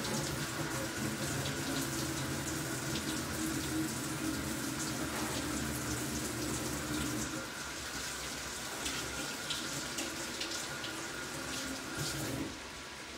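Kitchen tap running into a sink, a steady rush of water that is shut off near the end.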